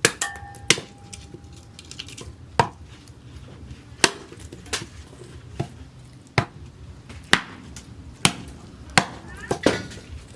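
Axe chopping into wood: a dozen or so sharp strikes at an uneven pace of about one a second. The first strike is followed by a short ringing tone.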